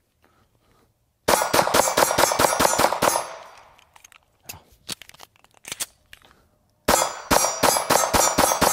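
Two rapid-fire strings of 9mm pistol shots. A stainless Ruger SR9 fires quickly for about two seconds starting about a second in. After a pause with a few small clicks, a black Ruger American pistol fires another fast string near the end.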